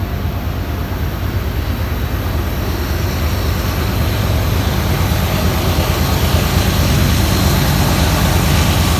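Union Pacific diesel freight locomotives approaching: a steady low engine rumble that grows gradually louder as the train draws near.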